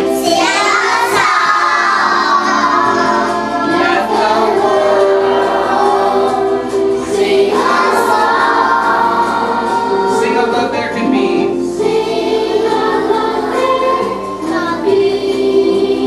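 A group of young children singing together over music.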